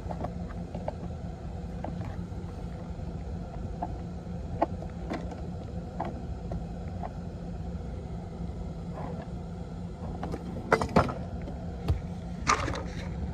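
Plastic toy garbage truck and toy garbage can being handled, the lift arm tipping the can. Scattered light plastic clicks run throughout, with a few sharper clatters near the end, over a steady low hum.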